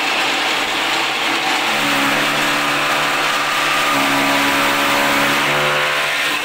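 Electric chaff cutter running and chopping fodder stalks: a loud, steady whirring and chopping noise. A low droning hum joins it about two seconds in and fades near the end.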